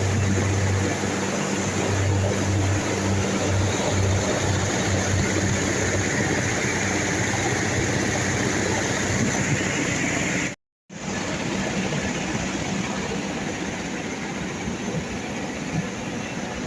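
Chiller plant machinery running steadily: a loud even mechanical noise with a low hum that fades over the first few seconds. The sound drops out for an instant about ten seconds in, then carries on the same.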